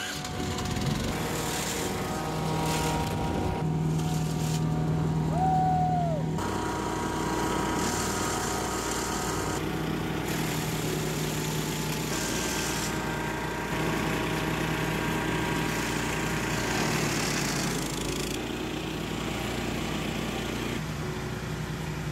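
Small Briggs & Stratton petrol engine of a Mighty Mac wood chipper running steadily while brush is fed through the chipper. The sound shifts in level and tone at several cuts in the footage.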